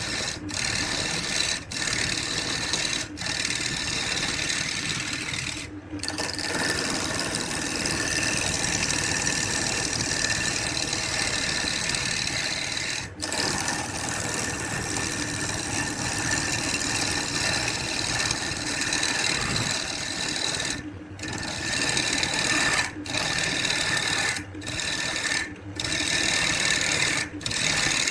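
A power tool's motor running steadily with a high whine, cut off abruptly for a split second several times.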